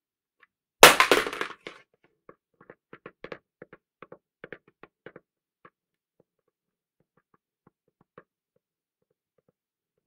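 A safety helmet (hard hat) dropped on the ground: a loud crack as it hits about a second in, with a quick rattle of bounces. Then comes a run of lighter knocks that thin out over the next few seconds, ending in a few faint ticks.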